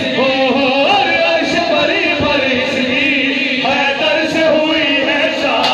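A group of men singing an Urdu devotional song (manqabat) in unison through microphones, holding long, bending melodic notes.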